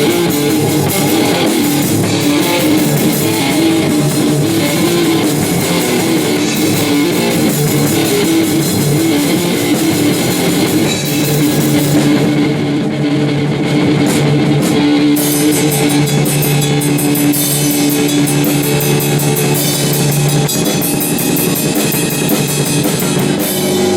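Electric guitar and drum kit playing a loud rock jam together. About halfway through, the cymbals drop out for a few seconds, then come back as a quick, regular ticking.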